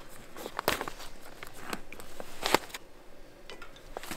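Irregular light clicks and knocks, about ten of them, the two sharpest about a second apart near the middle, over a faint hiss.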